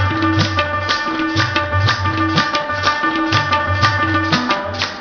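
Background instrumental music with a steady drum rhythm and sustained pitched notes.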